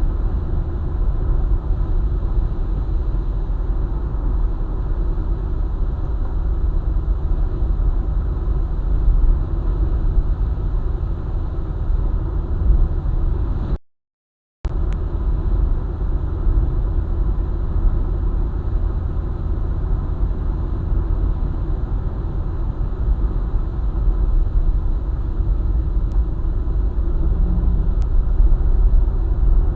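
A car travelling on a highway: a steady low rumble of tyre and engine noise. It cuts out completely for under a second about midway, then resumes unchanged.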